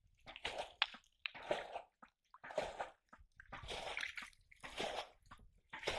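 Shallow muddy water squelching and sloshing as it is stirred, in short uneven bursts about once a second with brief quiet gaps.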